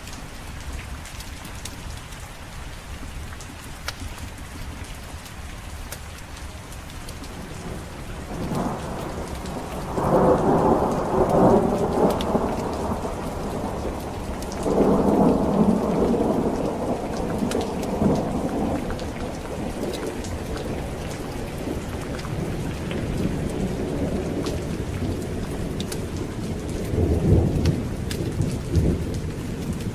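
Steady rain with rolling thunder. A rumble builds about nine seconds in and is loudest a second or so later, a second long rumble follows around fifteen seconds in, and a shorter, sharper one comes near the end.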